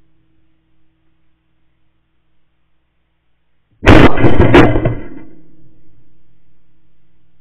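A shotgun fired about four seconds in: a sudden loud blast, a second sharp report under a second later, then echo dying away over a few seconds.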